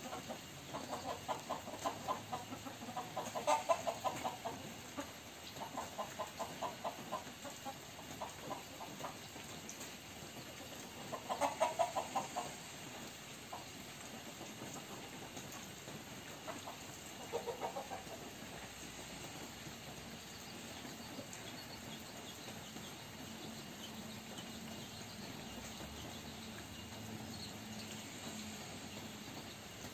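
Game-fowl chickens (Thai fighting-cock crosses) clucking in short runs of quick repeated clucks, the loudest run about twelve seconds in; after about eighteen seconds the clucking stops.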